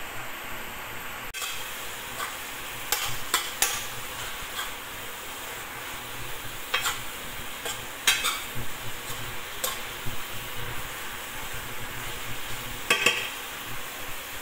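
Water spinach stir-frying in a pan with a steady sizzle, a utensil clicking and scraping against the pan several times as it is stirred.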